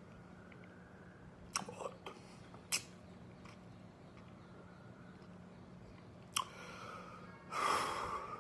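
A man's mouth noises during a silent pause: a few sharp lip and tongue clicks, then a short noisy breath in near the end. A faint steady hum runs underneath.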